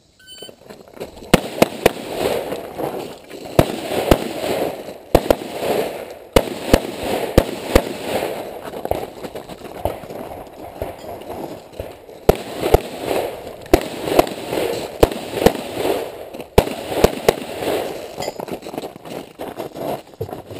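Gunshots fired in quick strings during a timed 3-gun competition stage. Bursts of several shots a second are broken by short pauses, each shot followed by a ringing echo.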